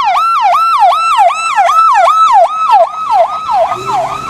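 Toy police car's electronic siren sounding loudly in a fast, repeating yelp, about three falling sweeps a second.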